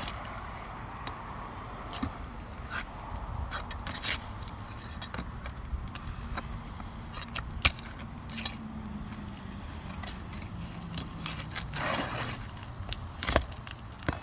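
Scattered scrapes, crackles and clicks of an old asphalt roof shingle being pried and pulled loose, with two sharp snaps, one about halfway through and one near the end. The shingle and its sealing strip are brittle and crease and break as they are pulled.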